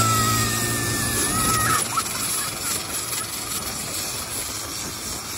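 A longtail boat's engine running steadily and fading out within the first second or so, with a high steady whine over it until about two seconds in. After that a steady rushing noise remains.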